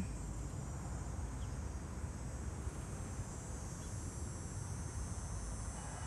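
Steady high-pitched insect chirring over a low, even rumble from cars stopped in highway traffic.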